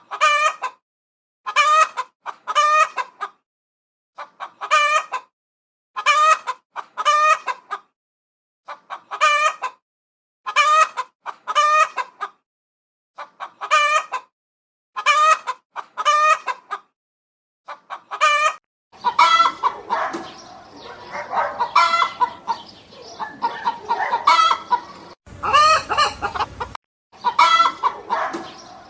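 Chickens calling. First, short pitched clucking calls come in pairs, about one pair every 1.5 seconds, with silence between them. About two-thirds of the way through, this gives way to a busier flock, with many overlapping calls over a steady background.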